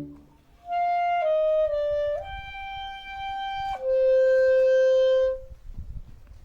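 A single woodwind of a town wind band playing a slow solo phrase of five notes, the last a lower note held for about a second and a half before it fades. The full band's chord breaks off just before the solo begins.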